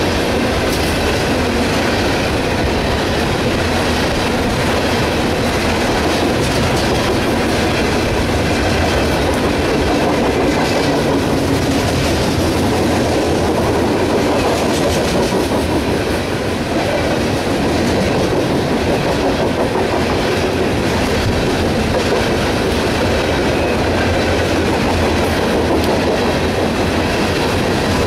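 Steel wheels of coal hopper cars on a freight train rolling over the rail close by, a steady loud rumble and rattle of a long string of cars passing.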